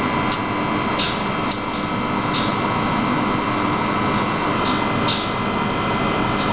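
Induction skull-melting furnace running with a steady hum and several high steady tones. On top of it come about half a dozen short, sharp crackles as metal granules in the compressed zirconia powder couple to the high-frequency field and spit sparks.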